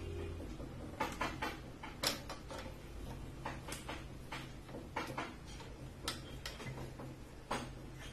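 BGA rework station running with a steady low hum, with light, irregularly spaced clicks and ticks over it.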